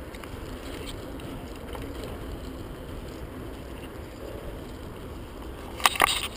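Merida Matts TFS 800D mountain bike rolling along asphalt, its tyres and the riding making a steady low rumble. A few sharp rattles and knocks come close together near the end, the kind a bike makes going over a bump.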